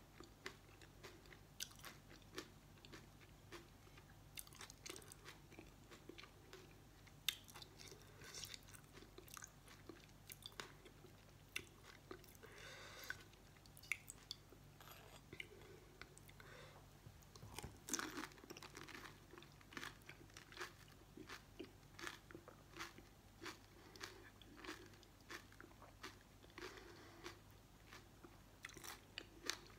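Close-miked eating of pani puri: crisp fried puri shells crunching and being chewed in the mouth, many short irregular crunches throughout.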